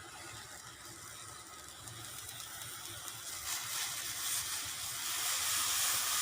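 Pot of milk tea (chai) heating on the stove toward the boil: a steady hiss that grows louder from about halfway through.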